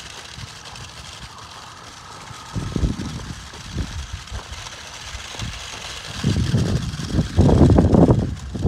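Wind buffeting the microphone in irregular low rumbling gusts, strongest near the end. Between about one and two and a half seconds in, the faint thin whine of the small electric motor of a toy RC crawler truck sounds under it.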